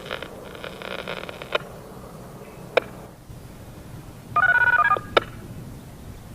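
Radio receiving the siren activation signal: a buzzy burst and a few sharp squelch clicks, then a quick half-second sequence of paired DTMF tones, the loudest thing here, which is the tone code that sets off the outdoor warning sirens for the test.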